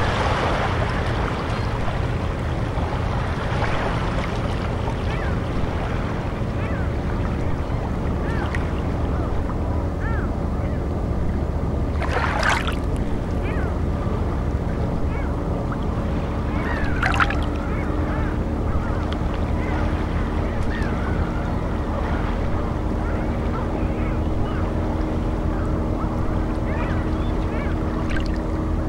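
Dark ambient sea soundscape: a steady deep rumble of water with held low drone tones beneath it and faint short chirping calls scattered throughout. Two brief hissing swells rise out of it, about twelve and seventeen seconds in.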